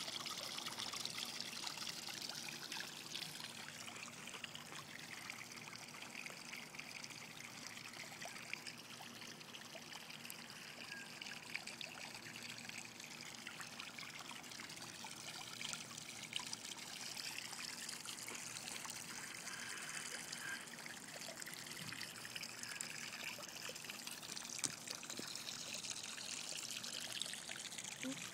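Swimming-pool water trickling and lapping close to the microphone, a steady hiss with small scattered ticks as the phone moves in and out of the surface.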